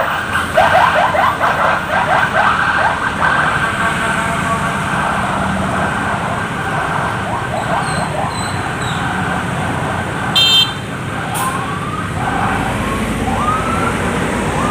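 Sirens of an official's escort convoy: rapid yelping sweeps over the first few seconds, then slower rising whoops near the end, over heavy city traffic noise. A short high beep sounds about ten seconds in.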